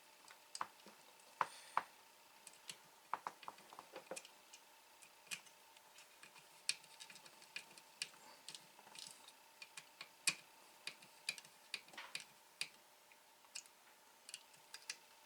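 Irregular light clicks and taps of small screws and plastic parts being handled and fitted into a desoldering gun's plastic housing, with a faint steady hum underneath.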